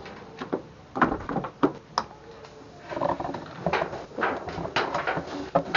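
Irregular clicks and knocks of hard objects being handled and set down, with no motor running.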